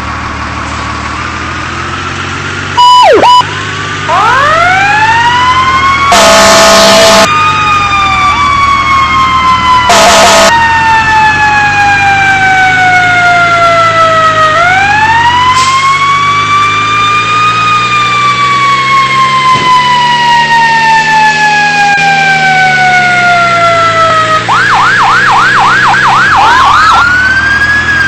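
Fire engine siren winding up and falling away in long, slow wails over the running engine. A short chirp comes about three seconds in, two air-horn blasts about six and ten seconds in, and a run of fast yelps near the end.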